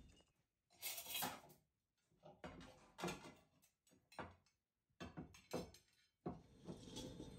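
Ceramic plates and cutlery being set down on a wooden table: a series of short, light clinks and knocks with brief silences between them.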